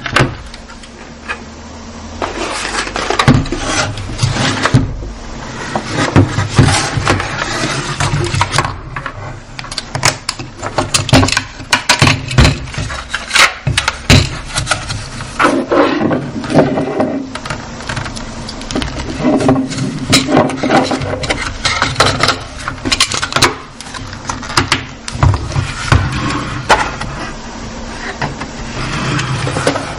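Irregular clicks, knocks and scraping from a plastic airsoft gun being handled, over a steady low hum.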